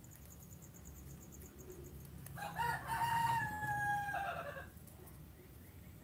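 A rooster crowing once, one long call of about two seconds that starts about two and a half seconds in.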